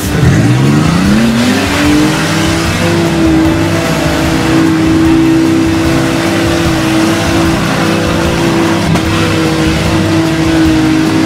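Toyota Supra 3.0-litre twin-turbo engine in a Land Rover Defender 90 chassis revving up over the first couple of seconds, then held at high revs as the tyres spin through the mud.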